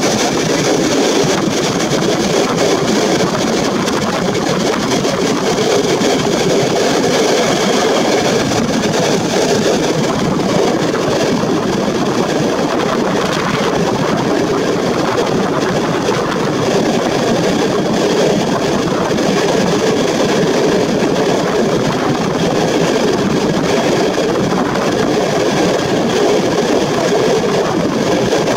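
Passenger train running at speed, heard from an open carriage window: a steady rush of wheel and rail noise mixed with wind.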